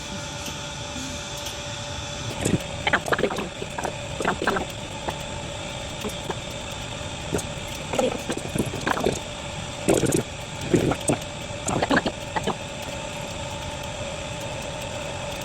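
Hand tools knocking and clinking on metal in short clusters while a motor is being worked on, over a steady machine hum with a constant whine.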